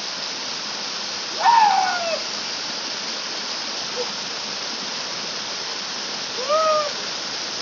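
Waterfall rushing steadily. Two short calls that rise and fall in pitch cut in over it, about a second and a half in and again near the end.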